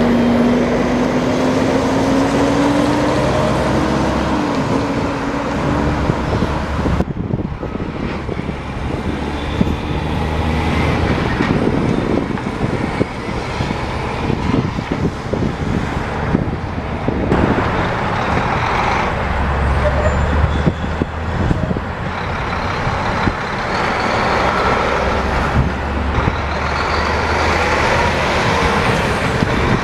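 Diesel engines of heavy tractor-trailer dump trucks pulling past one after another. In the first few seconds one engine's tone rises steadily as the truck accelerates away. The sound changes abruptly twice, about 7 and 17 seconds in, where the footage cuts from one truck to the next.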